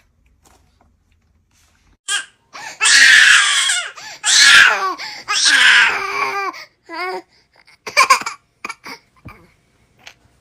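A baby crying, starting about two seconds in. Three long, loud cries are followed by shorter sobs that trail off near the end.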